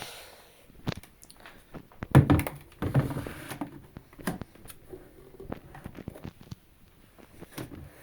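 Handling noise: a string of irregular knocks, taps and dull thunks of things being picked up and set down, loudest about two seconds in.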